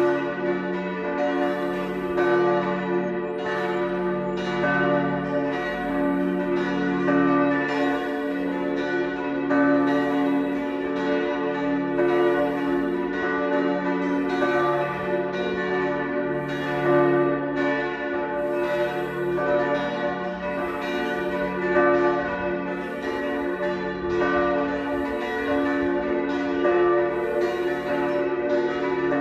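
Several church tower bells ringing together in a full peal, fresh strokes coming about every second and overlapping, their tones humming on continuously between strikes.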